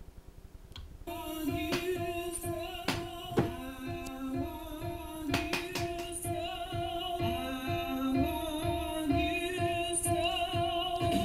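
Dance music with a woman singing, played back through a Logitech Z523 speaker system. It starts about a second in, with held synth chords and a few sharp percussive hits.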